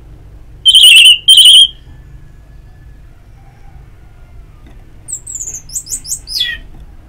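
Orange-headed thrush song: two loud, clear whistled notes about a second in, then near the end a quick run of short high notes sliding downward in pitch.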